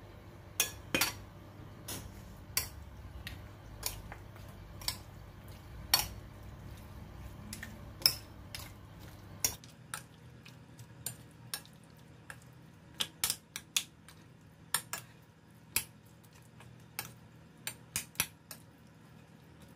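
Metal spoon clinking against a ceramic bowl while mixing pork spare ribs in their marinade. The sharp clinks are irregular, about one a second at first and coming closer together in the second half.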